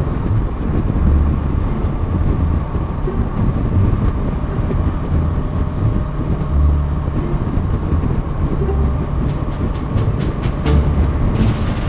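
Kawasaki Versys 650's parallel-twin engine running steadily while cruising at highway speed, under a heavy low rumble of wind on the helmet-mounted microphone.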